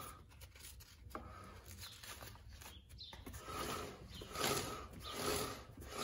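Rear wheel of a motorcycle on a paddock stand spun by hand, its drive chain running over the sprockets with a rubbing whir that starts about halfway through and swells and fades roughly once a second. The wheel turns with drag, tighter than would be preferred, which may be the rear brake rubbing.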